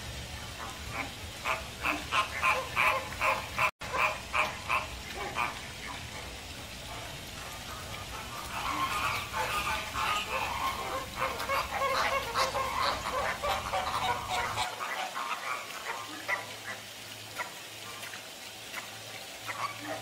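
A flock of American flamingos calling: a quick run of short calls, several a second, over the first few seconds, then many birds calling over one another in a denser chorus that thins out toward the end.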